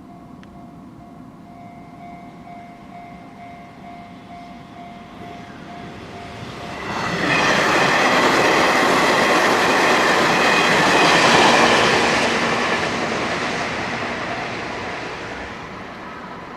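Level-crossing warning bell ringing in a steady, evenly repeated ding. About seven seconds in, a Hanshin Railway 8000-series electric train passes through the crossing, its wheels and running gear loud for several seconds, then fading away.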